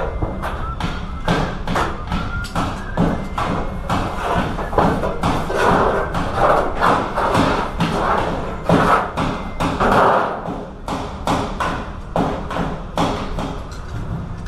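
Repeated sharp knocks and thumps, two or three a second at an uneven pace.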